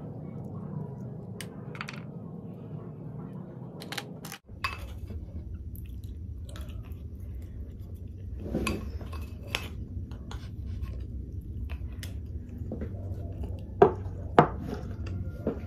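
Close-miked eating of sikad-sikad sea snails and sea grapes: chewing, with scattered clicks and taps of snail shells and a plastic spoon, and two sharp, loud clicks near the end.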